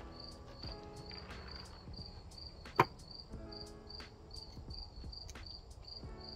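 A cricket chirping steadily, about two or three high chirps a second, with one sharp snap from the pruning of the juniper bonsai about three seconds in.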